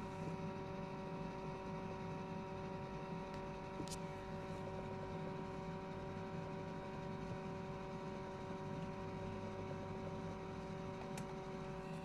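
LG WD-14370FD front-loading washing machine running as its drum turns slowly and tumbles the load, with a steady motor hum made of several fixed tones over a low rumble. One brief click about four seconds in.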